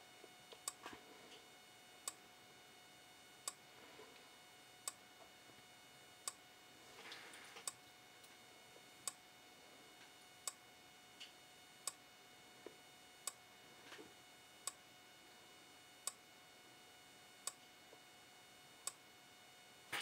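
Simplex 4903-9101 strobe, a Gentex-built unit, giving a faint sharp click each time it fires, evenly spaced about every 1.4 seconds: its slow flash rate of about 45 flashes a minute. A faint steady whine lies underneath.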